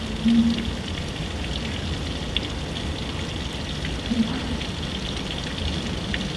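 Steady rain falling on a grassy yard and trees, an even hiss of drops.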